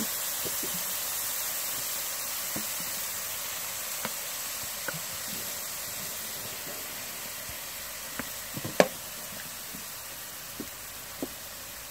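Minced pork frying in a metal wok: a steady sizzle that slowly dies down, with scattered clicks and knocks of a wooden spatula against the wok as it is stirred, the sharpest one a little before the end.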